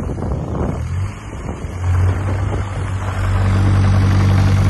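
Hitachi ZX26U-5 mini excavator's diesel engine running under hydraulic load as the machine turns and tracks. The engine note steps up about two seconds in and again a second later, then holds steady and loud.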